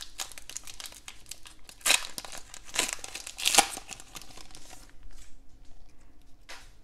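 Foil wrapper of a Donruss football card pack being torn open and crinkled by hand, with two sharper rips about two and three and a half seconds in. It turns to softer rustling and clicks as the cards are slid out near the end.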